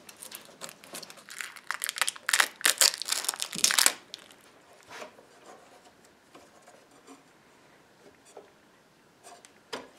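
Clear plastic wrap and tape crinkling and tearing as they are pulled off a freshly glued mahogany table leg. It is loudest about one and a half to four seconds in, followed by only faint handling ticks.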